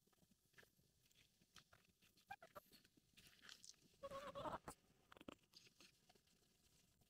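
Faint scattered clicks and crunches, with one short pitched animal call lasting under a second about four seconds in, the loudest sound here.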